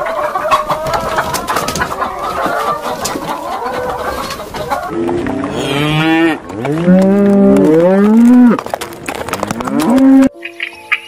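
A hen clucking among her chicks, then cows mooing: several long, low calls that bend up and down in pitch, loudest in the second half, cutting off abruptly near the end.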